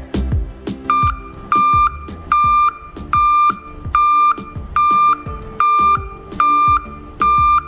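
A 12 V buzzer in a fire alarm circuit sounding the alarm: nine short beeps of one steady pitch, evenly spaced at a little more than one a second, starting about a second in. Background music plays underneath.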